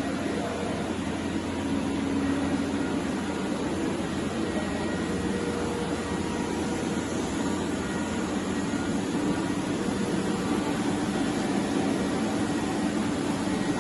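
Steady machine hum and whir, with a few faint steady tones, from a TOS five-axis CNC horizontal boring machine running.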